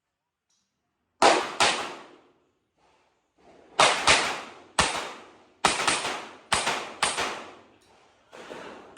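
Handgun shots fired in a rapid string during a match stage, about ten in all and mostly in quick pairs, each shot with a short echoing tail. The string starts about a second in.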